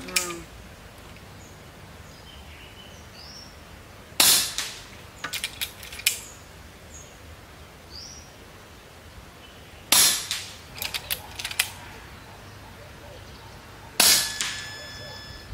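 Three shots from an RTI Prophet II 5.5 mm PCP air rifle fitted with a moderator, about six and four seconds apart, each followed by a few quick clicks of the action. The first two, with the one-way check valve removed, end clean; the last, with the check valve still fitted, is followed by a thin, high squeak from that valve lasting about a second.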